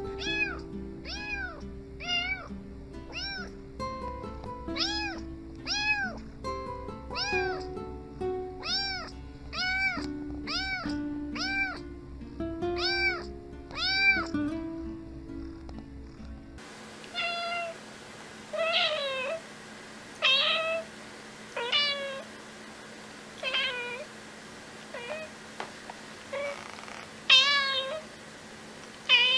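A kitten meowing over and over, about one short meow a second, with background music under it. Partway through this gives way to an adult cat meowing in separate calls a second or two apart, the loudest near the end.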